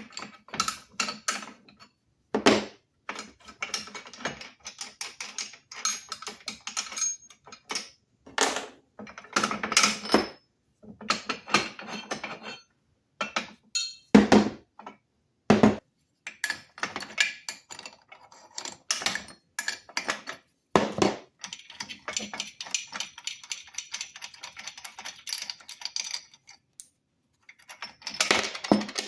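Metal tools and parts being handled: irregular clinks and knocks mixed with stretches of scraping and rasping, one longer scrape near the end.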